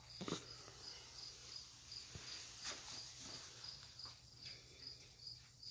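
Chirping insect, most likely a cricket, calling in an even high-pitched pulse about three chirps a second, with a few faint knocks of handling.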